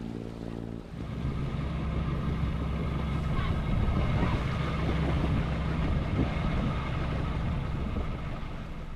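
A sailboat's inboard engine running steadily under way, with a low, even hum that grows louder about a second in.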